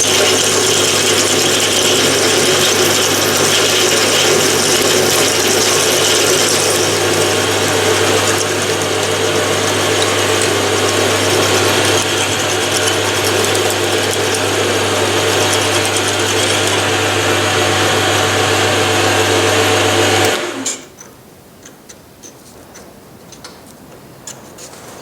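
Metal lathe running steadily under power while a 6.5 mm drill cuts a hole in the steel work. The machine stops abruptly about 20 seconds in, leaving only a few faint clicks.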